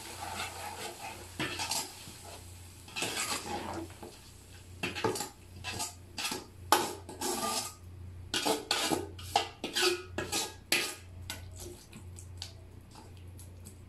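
A long steel ladle scraping and knocking against the sides and bottom of a large metal cooking pot, stirring frying tomatoes and onions. The clatters come in irregular bursts throughout.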